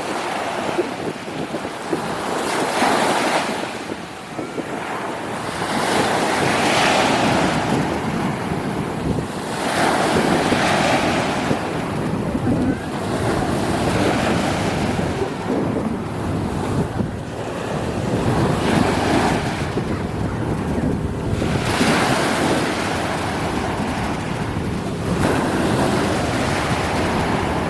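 Sea waves washing in and breaking over and over, swelling about every three seconds, with wind buffeting the microphone.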